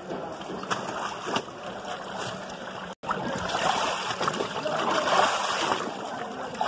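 Sloshing and splashing of muddy liquid in a stone tannery vat as a worker in waders treads and works hides in it, churning hardest in the second half. The sound cuts out for an instant about three seconds in.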